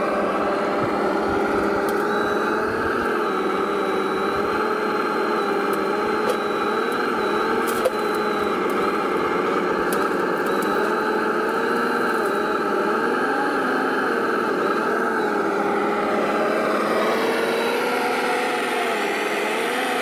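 A large radio-controlled model vehicle running steadily: a mechanical drone with a whine that wavers slightly in pitch as the throttle shifts, and a single sharp click about eight seconds in.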